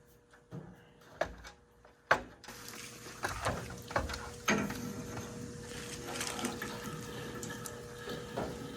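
A few sharp knocks and clicks, then about two and a half seconds in, water starts running into the tank of a Central Boiler outdoor wood boiler as it is refilled, a steady rushing hiss with more knocks over it.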